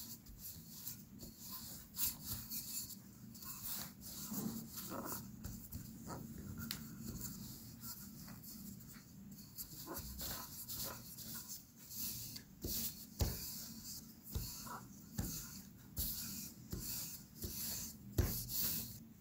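Wooden rolling pin rolling out soft yeast dough on a silicone pastry mat: quiet, irregular rubbing strokes with scattered light clicks and knocks.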